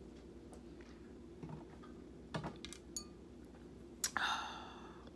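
Quiet room tone with a few light clicks and taps from small objects being handled, and one louder short scrape or breath about four seconds in that fades away quickly.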